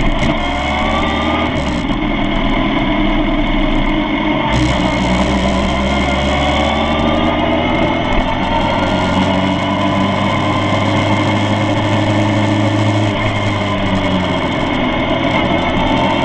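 Suzuki GSX-R1000 K7's inline-four engine running at low revs while the bike rolls slowly, steady with a few gentle rises in revs.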